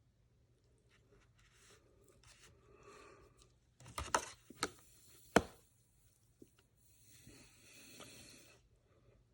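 Handling noises from cleaning a black powder rifle: soft rustling and scraping, then a few sharp clicks or knocks in the middle, then a steady hiss lasting about two seconds.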